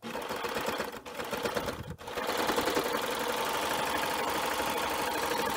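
Baby Lock Evolution serger starting up and stitching, with a rapid even chatter of needles and loopers. It dips briefly twice in the first two seconds, then runs steadily at speed.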